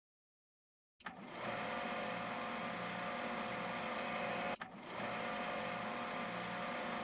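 Small stepper motor running with a steady mechanical whir and hum. It starts about a second in, drops out briefly at about four and a half seconds, then runs on.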